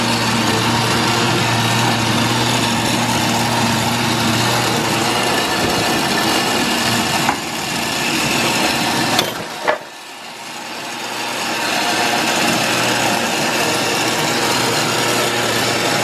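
Countertop blender running, puréeing soaked chiles with vinegar for a sauce. The motor cuts out briefly about halfway through and then spins back up to speed.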